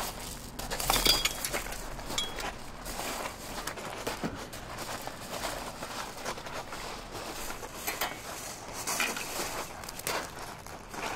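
Rooftop gravel crunching and shifting under a dancer's feet and body as she steps, crouches and lunges: irregular crunches and small clinks of stones, loudest about a second in.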